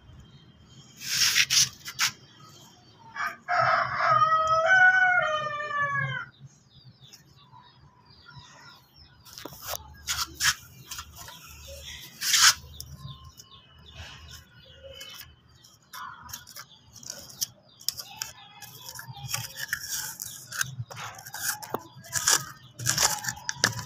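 Hands scraping and pushing dry soil into a clay pot, with scattered knocks and crunches. About three seconds in, a loud, long bird call of about three seconds rings out, its pitch sliding down at the end.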